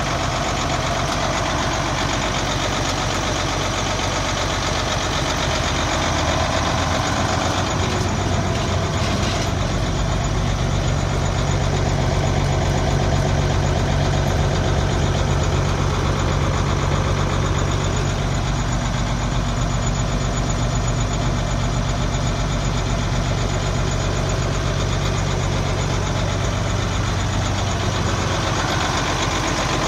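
1993 Ford L8000 dump truck's diesel engine idling steadily.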